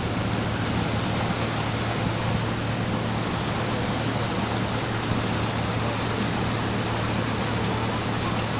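A boat's engine running steadily as a low hum, under a loud, even rushing noise of wind and water.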